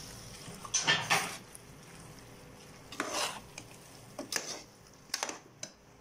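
Metal ladle stirring rice and masala in an aluminium pressure cooker, scraping against the pot in about five short strokes.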